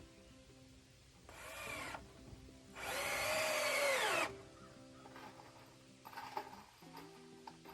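Power drill running in two bursts over background music, the motor's pitch rising and then falling each time. The second burst is longer and louder.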